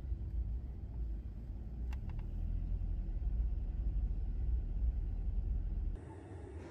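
Low, steady rumble of a car on the move, heard from inside the cabin, with a few quick clicks about two seconds in. Near the end it cuts off suddenly to a quieter background.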